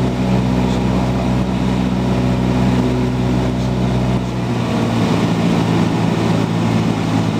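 Cessna 172's piston engine and propeller droning steadily in flight, heard from the cockpit; about four seconds in the engine note changes and the deepest part of the drone drops away.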